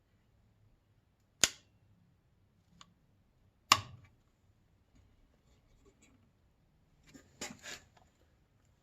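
Two sharp clicks about two seconds apart, then a short cluster of lighter clicks and rattles near the end, made by hard computer parts being handled.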